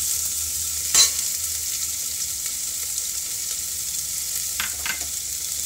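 Chopped onions sizzling in hot oil in an aluminium pressure cooker, a steady high hiss. A sharp knock comes about a second in, and a few light clicks of a steel ladle stirring come near the end.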